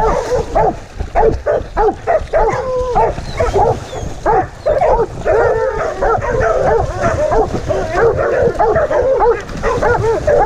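A pack of deer dogs barking and baying hard, with many barks overlapping one another without a break. The barks are heard close up from a camera riding on a running dog's back, over a low rumble of movement and water splashing.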